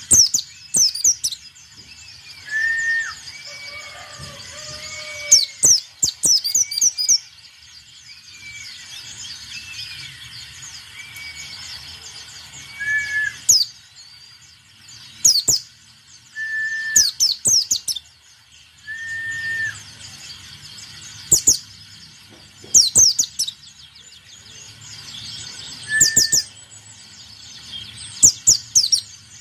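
White-eye (pleci) singing: clusters of rapid, very high, sharply descending notes every couple of seconds, with short, lower whistled notes between them.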